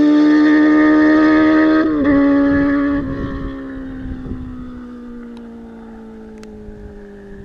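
Kawasaki Z800's inline-four through an SC Project exhaust, held loud at high, steady revs. About three seconds in the throttle is closed, and the engine note sinks slowly in pitch and grows quieter as the revs fall away.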